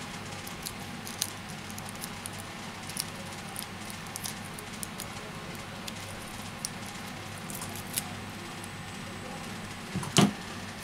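Scattered small clicks and taps of metal tweezers and fingers handling a phone display assembly while peeling and sticking tape, over a steady low hum; one sharper tap about ten seconds in.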